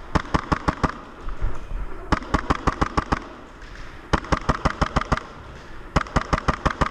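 Airsoft gun firing full-auto in four bursts of about nine quick shots a second, each burst lasting roughly a second with short pauses between. The gun is an AAP-01 gas blowback pistol in an MP7-style kit, run on HPA (compressed air).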